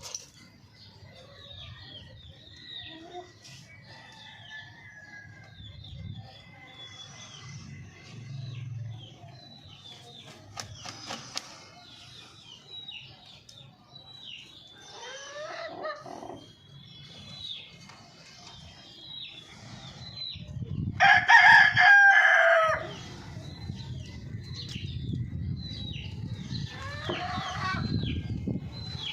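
Chickens clucking and calling, with many short high chirps throughout and a few drawn-out falling calls. About two-thirds of the way in, a rooster crows once, loudly, for nearly two seconds.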